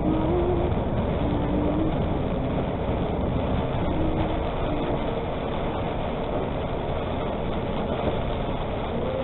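Steady engine and road noise of a tractor-trailer driving on a wet expressway, heard from the cab, with a faint engine tone that shifts in pitch a few times.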